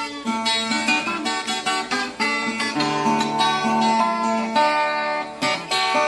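Instrumental viola caipira music: a Brazilian ten-string folk guitar plucked in a quick, busy run of notes, with no singing.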